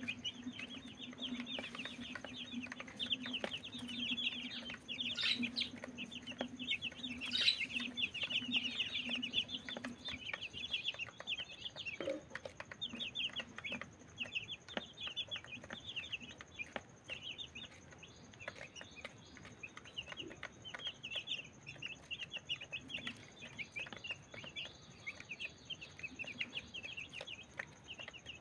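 A flock of chicks peeping continuously while they feed: many short, high peeps overlapping one another without a break.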